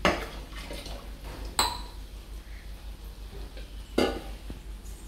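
Metal kitchenware clanking three times, a couple of seconds apart; the second strike rings briefly.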